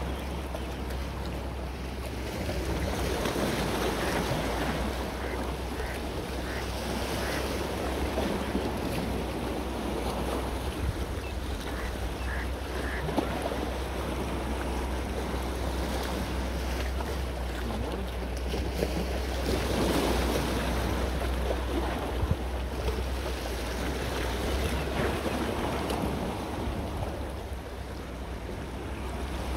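Sea waves washing on the shore, swelling and easing every several seconds, with wind rumbling on the microphone.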